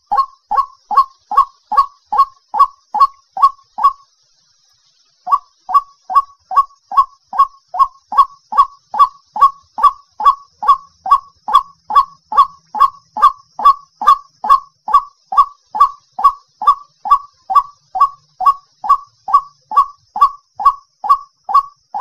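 White-breasted waterhen calling: a long run of evenly repeated loud notes, about two and a half a second, which breaks off for about a second a little after four seconds in and then resumes.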